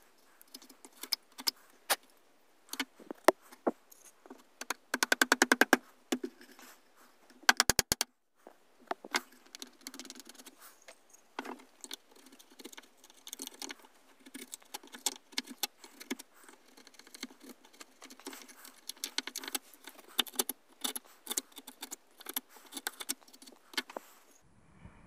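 Bench chisel paring and scraping the waste out of a hand-cut softwood dovetail joint: a run of sharp clicks and scrapes, with two quick rattling runs of strokes about five and seven and a half seconds in.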